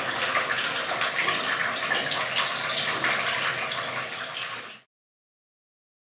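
Water splashing and trickling steadily down a small tabletop waterfall fountain, fading out about four and a half seconds in.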